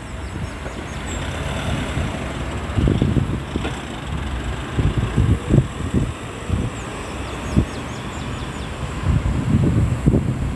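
Road traffic of cars and trucks passing on a busy roundabout, a steady rush with irregular low rumbling surges.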